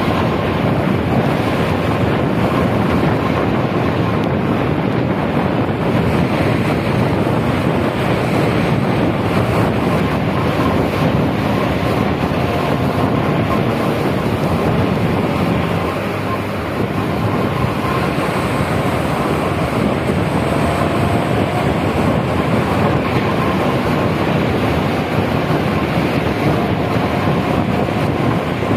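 Steady rush of wind over the microphone and rain-soaked road noise from a tour bus driving through heavy rain, with a brief dip in level about sixteen seconds in.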